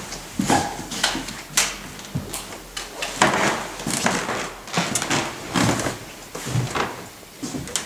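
Irregular footsteps and knocks with some rustling as a person walks through a doorway into a small room.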